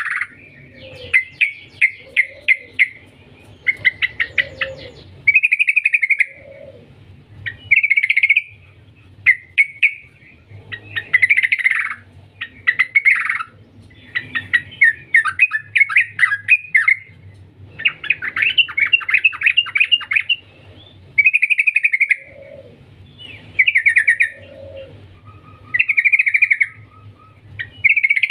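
Yellow-vented bulbul (trucukan) singing: bubbly phrases and fast chattering trills, each lasting a second or two, with short pauses between them.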